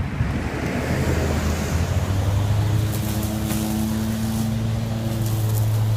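EGO 56V battery lawn mower running under load, its electric motor and spinning blade giving a steady hum. There is a rushing noise of cutting in the first couple of seconds and scattered light ticks of debris striking the deck.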